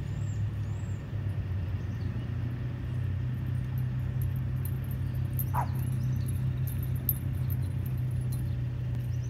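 Steady low hum of a running motor, with a brief rising squeal about halfway through.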